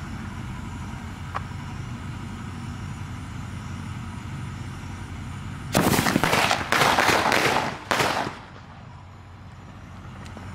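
A 'signal rocket' sky-shot firework going off: a loud, quick run of shots beginning about six seconds in and lasting about two and a half seconds, over a steady low hum.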